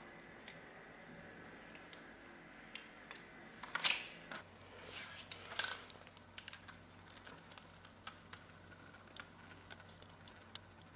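Faint scattered clicks and handling noises, with two louder rustling scrapes, about four and five and a half seconds in, after which a low steady hum sets in.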